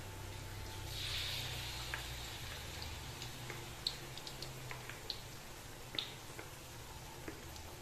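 Battered oncom pieces deep-frying in hot oil in a wok: a steady sizzle with scattered sharp pops and crackles, swelling briefly about a second in.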